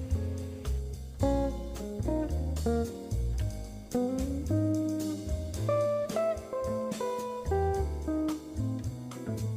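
Background music: plucked guitar playing a melody over a bass line with a steady beat.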